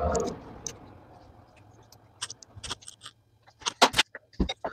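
Metal-on-metal clicks and clanks from handling a lathe's quick-change tool post and wrench: scattered sharp knocks, loudest in a quick cluster about four seconds in, followed by a dull thump.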